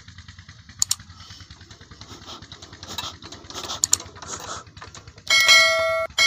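Metal clinks and rattles of hand tools on the fuel-line fittings of a diesel engine's injection pump, over a faint low engine throb. Near the end a loud sustained ringing tone breaks in, stops briefly and starts again.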